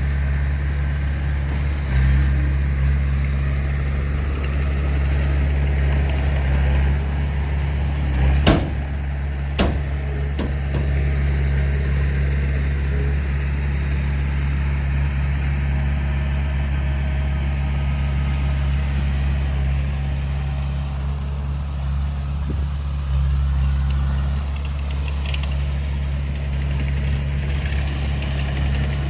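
Heavy diesel engine of earthmoving equipment running steadily with a low drone, with two sharp knocks about eight and a half seconds in and again a second later.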